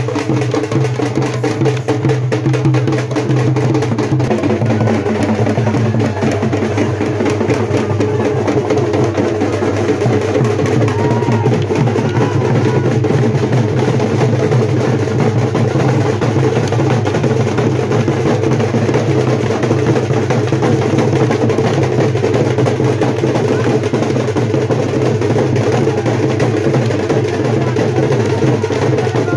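Fast, continuous folk drumming, the rhythm that drives a Bundelkhandi Deewari stick dance.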